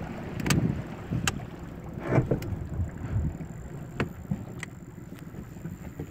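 Faint hiss of wind and water around a small inflatable boat, with several sharp clicks and knocks scattered through, the loudest in the first half.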